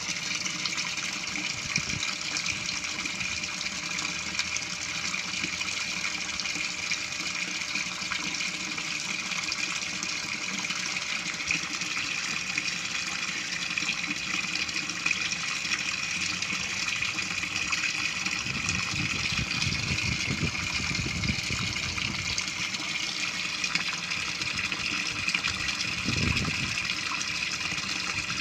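Water pouring steadily into a fish tank, splashing onto the surface.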